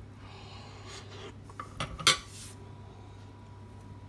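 Cutlery scraping and clinking against a dish as a piece of pie pastry is cut and picked up: a soft scrape, then a few sharp clinks about two seconds in, the last the loudest.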